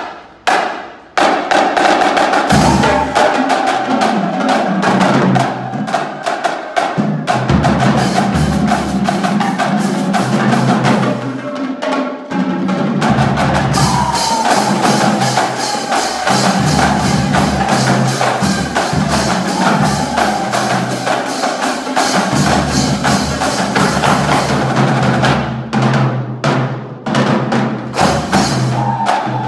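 Marching drumline playing a fast cadence on snare drums and tuned bass drums, opening with one sharp hit and then drumming continuously from about a second in.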